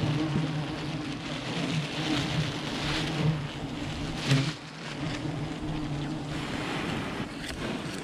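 A swarm of wild honeybees buzzing in a steady low hum, with a hiss over it and a couple of brief clicks.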